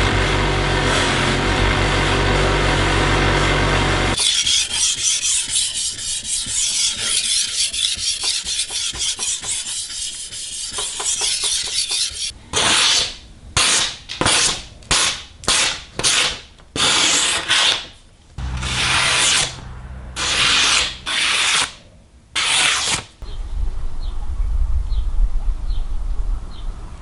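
Steel knife blade rubbed by hand against an abrasive. It starts as continuous rasping, then breaks into about a dozen separate strokes of roughly half a second each. It is preceded by a steady running noise with a low hum for the first four seconds.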